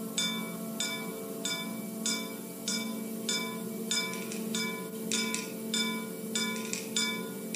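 Symphonic wind band holding a sustained low chord while a ringing metallic percussion instrument, bell-like, strikes a steady repeated note about every two-thirds of a second, the strokes coming closer together near the end. Played back from a cassette tape recording.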